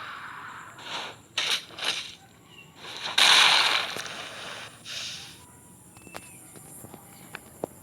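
Fingers rubbing and tapping close to the microphone: bursts of scratchy rustling, loudest for about a second starting three seconds in, then scattered light clicks.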